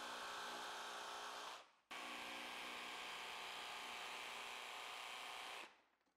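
Milwaukee Fuel cordless jigsaw running steadily as it cuts a laminate floor plank, a quiet buzzing drone. It drops out for a moment a little under two seconds in and stops shortly before the end.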